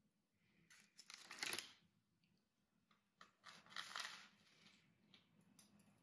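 Baking parchment crinkling in two short bursts, the louder about a second and a half in and another about four seconds in, as a piece of pizza toast is lifted off it.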